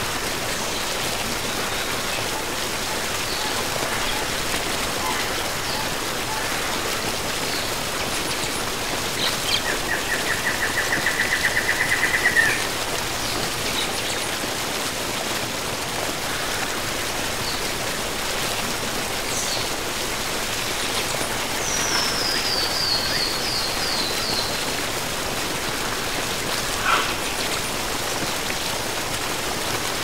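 Steady rush of a waterfall, with birds calling over it: a rapid trill lasting about three seconds near the middle, growing louder to its end, and later a short run of notes falling in pitch, with a few brief calls between.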